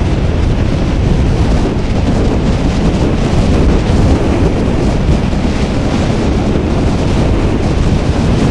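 Wind buffeting the microphone of a helmet camera on a motorcycle riding at road speed: a loud, steady rumble.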